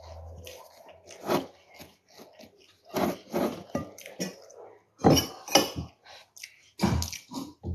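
A metal spoon clinking and scraping against a plate in short, irregular strokes, the loudest about five seconds in.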